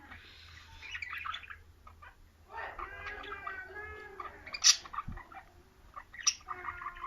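Pet lovebirds chattering with rapid chirps and squawks, with one sharp, shrill call about two-thirds of the way through.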